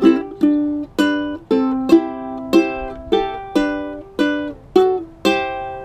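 Ukulele strummed in a steady run of chords, about two strums a second, with a last chord near the end left to ring out.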